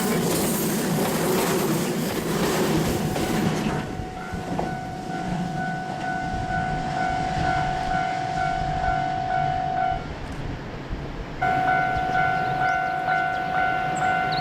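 Electric train passing over a railway level crossing, its wheels clattering on the rails, dying down about four seconds in. Throughout, the crossing's electronic warning bell rings with a steady pitched clang. The bell stops about ten seconds in and starts ringing again a second and a half later.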